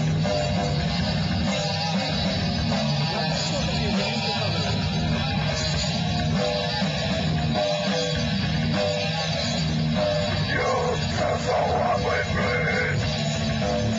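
A live rock band playing with electric guitars, heard steadily through a camcorder microphone.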